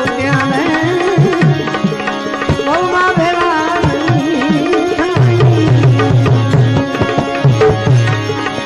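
Bhajan music: tabla playing a rhythm under a wavering, gliding melodic line. Deep tabla bass strokes come in thickly about five seconds in.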